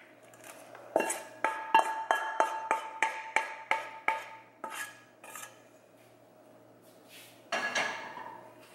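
A cooking pot knocked repeatedly as the last of the shrimp and sauce is knocked out of it: about a dozen sharp, ringing knocks, roughly three a second, for about three seconds. A short scraping rustle follows near the end.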